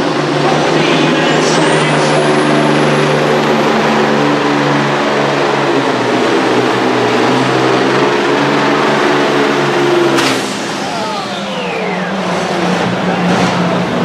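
Volvo pulling truck's engine running flat out under load as it drags a pulling sled, with a high whistle climbing steeply in the first couple of seconds and then holding. About ten seconds in, the engine note breaks off suddenly as the pull ends, and falling whistles die away while the engine keeps running lower.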